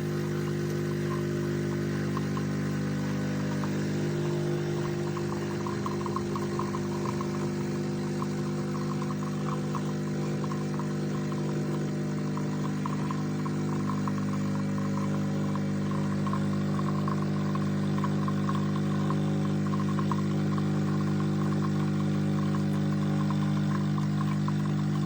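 Philips Baristina espresso machine's pump buzzing steadily as it brews.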